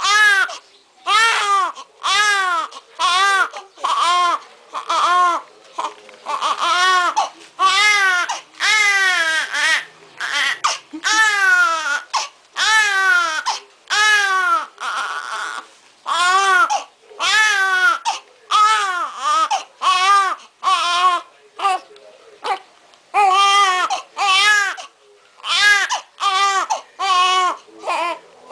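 Newborn baby crying hard: a steady run of short wails, each rising then falling in pitch, a little more than one a second, with a brief lull about three quarters of the way through.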